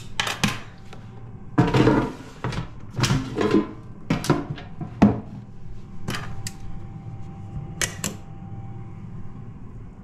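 Clattering and knocking of a metal cake tin, a wire tin lifter and an air fryer basket being handled and set down, with a sharp knock about halfway through. A faint steady tone runs through the second half.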